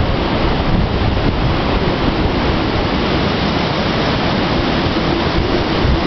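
Strong wind blowing across the microphone, a steady loud rushing noise heaviest at the low end.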